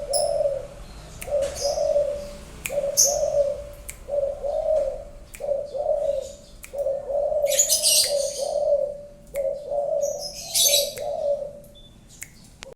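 Spotted dove (tekukur) cooing over and over, one low phrase after another. Twice, about halfway and again near the end, high twittering chirps from other small birds sound over it.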